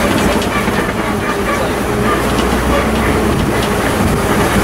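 Open-sided safari truck driving over a rough dirt track: a steady engine and road noise with the body and fittings rattling.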